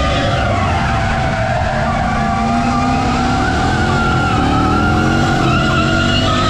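Drift car sliding, its engine revving and its tyres squealing, with the engine pitch climbing several times in the middle.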